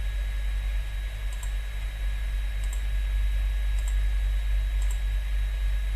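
Four faint clicks, about one a second, over a steady electrical hum with a thin high whine.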